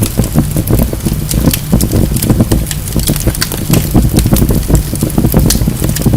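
Wood logs burning in a fireplace: a steady low rush of flames with dense, irregular crackling and popping, several sharp cracks every second.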